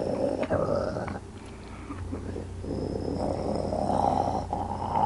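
A person imitating a wolf's growl with their voice. A rough growl stops about a second in. A second growl starts about two and a half seconds in and builds louder and higher toward the end, with a few short clicks along the way.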